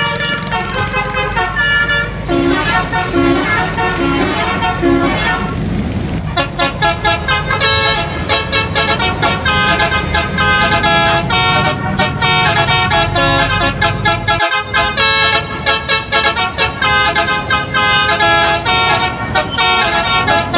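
Vehicle air horn sample pitch-shifted and edited into a fast melody of short horn notes, over a low steady engine and road rumble that cuts off suddenly about two thirds of the way through.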